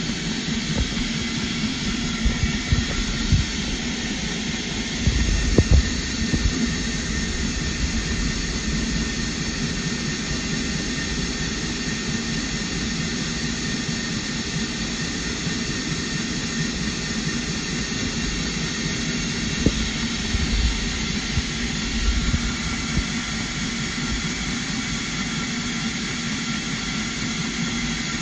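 Single-cylinder engine with a 3D-printed single-overhead-cam valve head running steadily, with a few brief low thumps about five seconds in and again about twenty seconds in.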